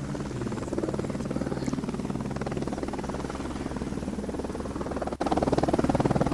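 Helicopter rotor chopping steadily, with a brief dropout a little over five seconds in, after which it is louder.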